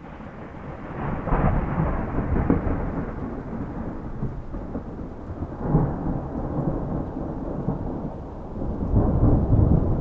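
Thunderstorm: rain falling steadily while thunder rumbles, swelling loudest about a second in, again near six seconds, and in a long deep roll near the end.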